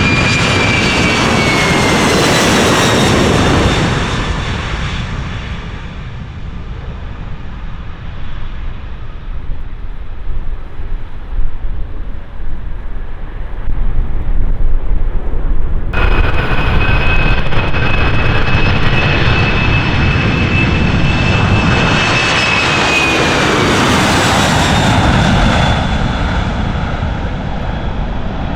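Two heavy jet airliners on departure passing close, one after the other: each comes as a loud rumble with a high engine whine that drops in pitch as it goes by. The first passes about two seconds in and fades into a low rumble; the sound cuts abruptly to the second about sixteen seconds in, which passes about seven seconds later.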